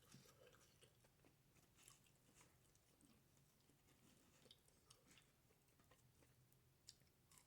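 Faint chewing of a person eating, with small scattered clicks and crunches and near silence between them.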